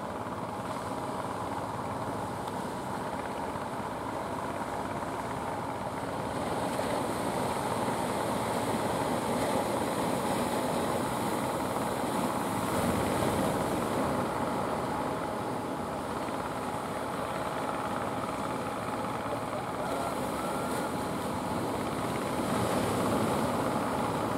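Fishing boat engines running steadily offshore, mixed with the wash of surf breaking on the shore, which swells louder twice.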